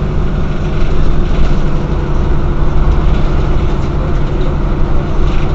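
Mercedes-Benz O 405 N city bus running steadily, a loud, deep engine drone with no change in pitch.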